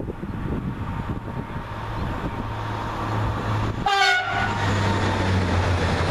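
TER regional train (Alstom AGC railcar) approaching and passing close by, its running noise and low hum building. It sounds a short horn blast about four seconds in.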